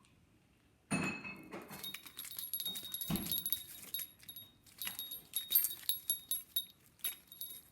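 Small metal pieces jingling and clinking with scattered clicks, starting about a second in and going on unevenly.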